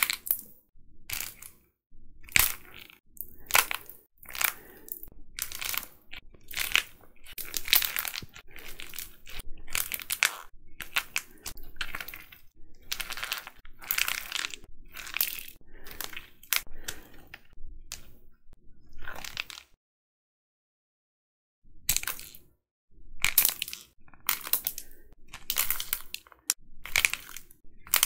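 A painted plaster-clay figure crushed and crumbled in bare hands: repeated irregular crackling and crunching as the hardened clay shell breaks apart, with about two seconds of silence a little past the middle.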